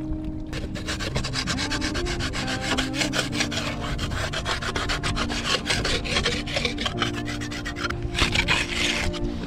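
A hand scraper rasping in fast, repeated strokes over the hard bottom of an inflatable skiff, scraping off crusted barnacles and mussels.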